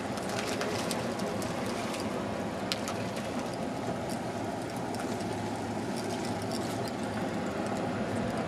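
Steady outdoor wash of wind and sea, with a few faint clicks scattered through it.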